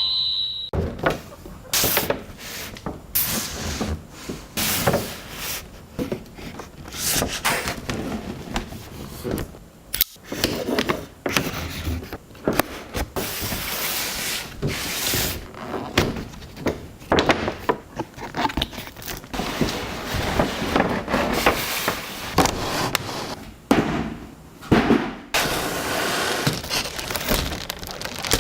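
Cardboard box and plastic packaging handled and opened for unboxing: irregular rustling, scraping and sharp clicks and taps throughout.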